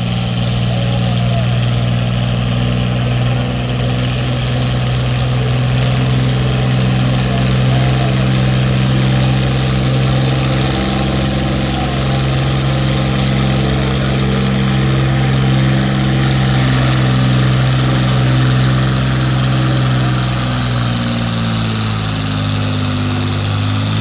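John Deere farm-stock pulling tractor's engine working flat out under load as it drags a weight-transfer sled, running at a steady pitch. About three seconds before the end the engine note drops as the tractor slows under the sled's growing load.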